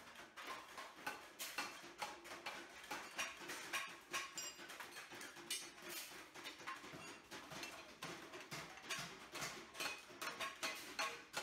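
Faint, irregular light taps and clinks of hand tools working galvanized sheet metal, many small knocks in quick succession.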